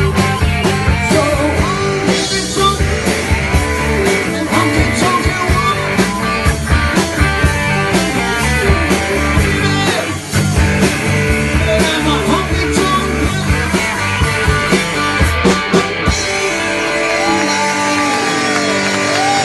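Rock music: guitar over a drum kit keeping a steady beat, with bent guitar notes rising and falling in pitch. The drums drop out near the end while the music carries on.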